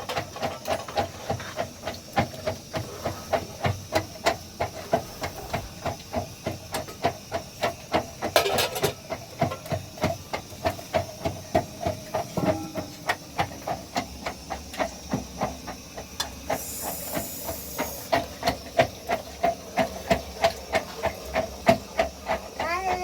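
Steady rhythmic pounding, about three strokes a second, each knock with a short ringing note.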